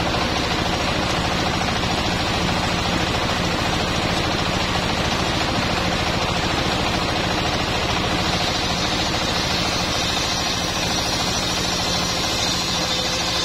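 Engine-driven circular sawmill running: the stationary engine keeps up a fast, steady knocking while the circular saw blade rips sengon (albasia) timber into planks. The high cutting noise grows stronger about eight seconds in.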